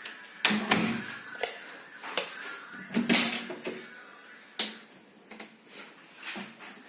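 A series of irregular sharp knocks and clicks, about a dozen, the loudest about half a second in and again around three seconds in, as of handling doors or fittings in a small tiled room.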